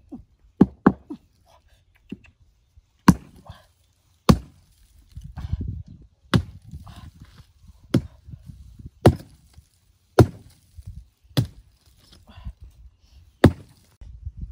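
Small axe chopping into a dead log: about ten sharp blows, mostly about a second apart.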